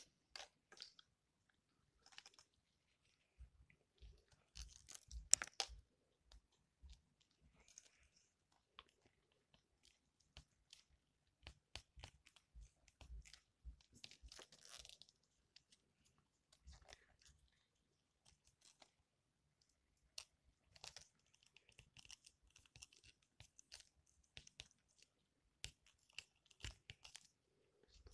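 Faint, irregular taps, clicks and rustles of hands handling plastic drinking straws on a hard tabletop, with a louder cluster about five seconds in.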